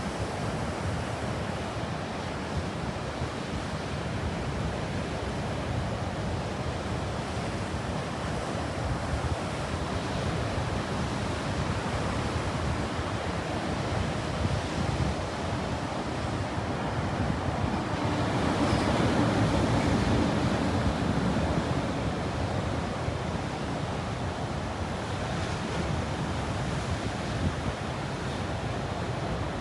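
Ocean surf breaking and washing on a beach, a steady rush that swells louder for a few seconds just past the middle as a bigger wave comes in, with some wind on the microphone.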